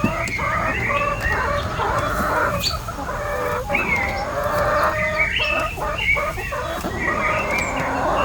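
A flock of chickens clucking and calling, many birds at once, their short calls overlapping without pause.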